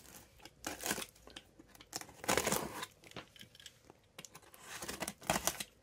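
Packing tape on a cardboard shipping box being slit with a knife and pulled at, scraping and rustling in several short, irregular bursts.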